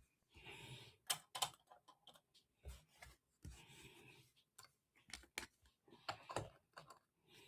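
Faint, scattered light taps and short rustles at uneven intervals from trading cards being handled and set down.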